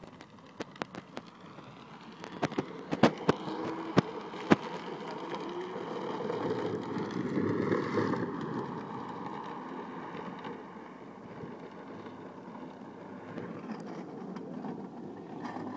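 Drift trike rolling and sliding on asphalt, its hard plastic rear wheels giving a rumbling scrape that swells to its loudest as it passes about eight seconds in, then fades. Several sharp clicks in the first few seconds.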